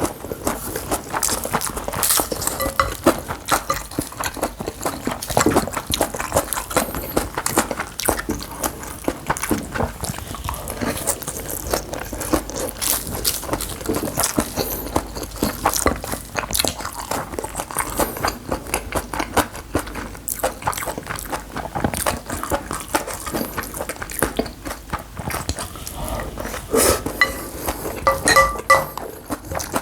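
Close-miked eating of bibimbap: a metal spoon scraping and clinking against the bowl, mixed with chewing, as a dense run of small clicks and scrapes. A few short ringing clinks come near the end.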